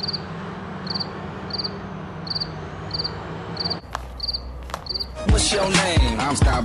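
Cricket chirping: short, high chirps about every two-thirds of a second over a steady hiss. The sound changes abruptly about four seconds in, and near the end loud music with a heavy beat starts.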